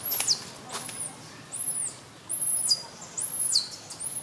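Newborn baby monkey crying in a series of about six shrill, piercing squeals, one roughly every 0.8 seconds, each arching up then dropping sharply in pitch.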